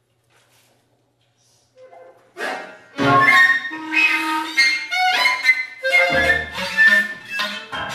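Contemporary chamber music for flute, clarinet, violin and piano. Near silence for about two seconds, then the ensemble comes in loudly with a dense flurry of short, sharply accented, overlapping notes and a few deep low notes.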